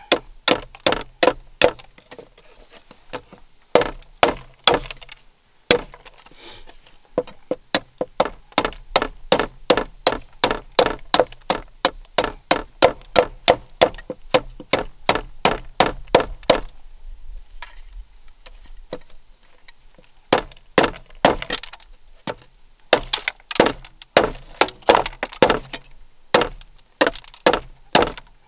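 A large knife taking quick downward cuts along a strip of bamboo, each stroke a sharp wooden click as a chip splits off, about two to three a second. It pauses briefly twice.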